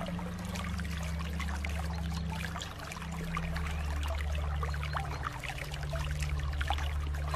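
Rain falling, a steady wash of water full of small drips and splashes, over a steady low drone.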